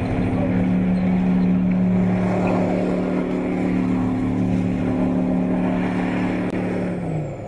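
Puma infantry fighting vehicle's 10-cylinder diesel engine running steadily as the tracked vehicle drives over dirt. Its engine note dips slightly and the sound begins to fade near the end.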